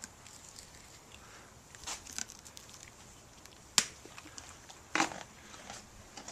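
A horse crunching and chewing a hard treat: irregular crunches and clicks, the sharpest a little before the four-second mark and another about a second later.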